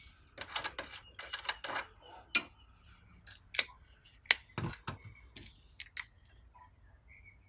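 Irregular clicks and light metallic clinks of a hand driver being handled and fitted into the brass service valve of a split-system air conditioner's outdoor unit, ready to open the valve.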